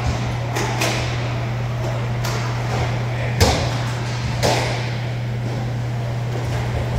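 Inline hockey play: several sharp, echoing clacks of sticks and puck, the loudest about three and a half seconds in, over a steady low hum.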